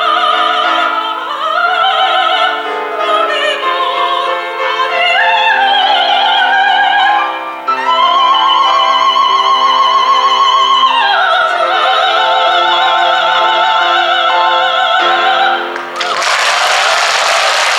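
Soprano singing the closing phrases of a Korean art song with piano accompaniment, long held high notes with wide vibrato. The song ends about sixteen seconds in and the audience begins applauding.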